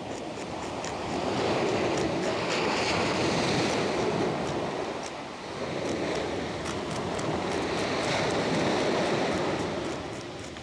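Surf breaking and washing on a pebble beach, swelling and easing twice, with wind on the microphone. Faint quick scraping ticks over it from a knife scraping the scales off a bar jack.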